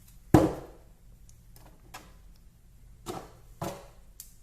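Clicks and knocks of hex screwdriver bits and a magnetic bit holder being handled in the kit's plastic case. One loud sharp click with a short ring comes about a third of a second in, then a few softer clicks follow.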